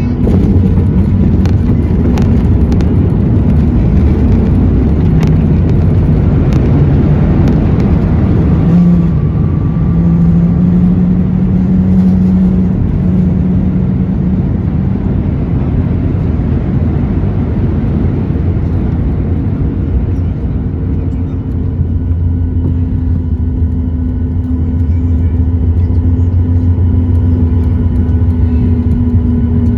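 Cabin noise of an Air Canada Boeing 737 MAX on its landing roll, heard from a window seat: a loud rumble with several sharp jolts through the first several seconds, then a steadier hum from the CFM LEAP-1B engines that shifts in pitch and firms up near the end.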